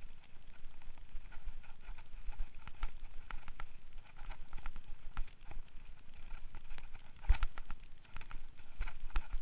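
A mountain bike rattling along a bumpy dirt singletrack: an uneven patter of clicks and knocks from the bike over low rumble, with one hard jolt about seven seconds in.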